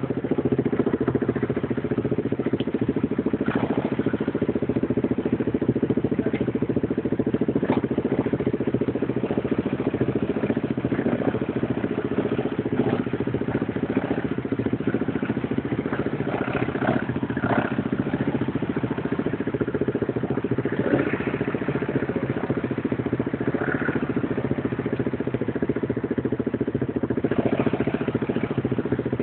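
ATV engine running at a steady speed, with scattered clattering knocks over it.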